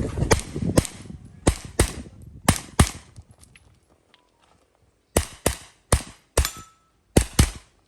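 Handgun shots fired in quick pairs: six shots over the first three seconds, a pause of about two seconds, then six more shots in pairs near the end, each a sharp crack.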